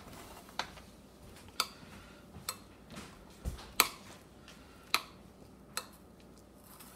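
Metal spoon clicking against the side of a bowl while stirring mayonnaise into mashed egg yolks: about eight sharp, irregular clicks, with a dull knock about three and a half seconds in.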